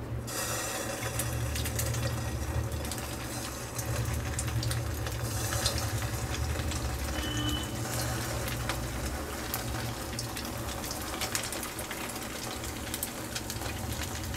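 Stuffed bread balls deep-frying in hot oil in a kadai: a steady sizzle with many small crackles.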